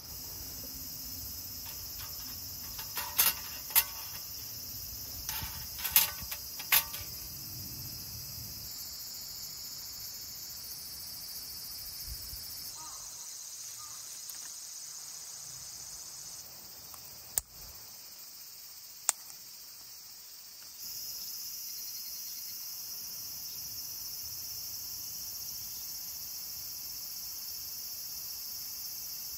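A steady chorus of crickets and other insects chirping high and continuously. Over it come several sharp clicks and knocks, bunched a few seconds in, with two more single clicks past the middle.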